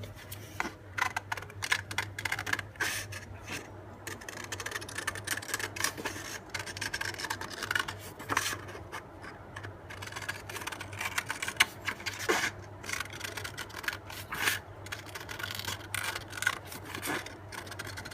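A sheet of craft paper being cut by hand along a traced outline: irregular snips, with the paper rustling and scraping as it is turned.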